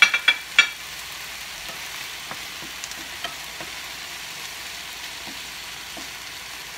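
Oyster mushrooms sautéing in olive oil in a nonstick frying pan, with a steady sizzle as they are stirred with a wooden spoon. There are a few sharp knocks in the first second, and small scattered ticks after.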